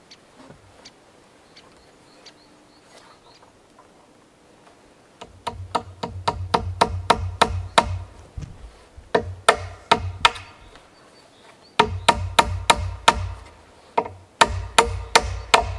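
Quick, evenly spaced strikes of a hand tool on wood, about four a second. They come in four runs starting about five seconds in, after a few faint knocks.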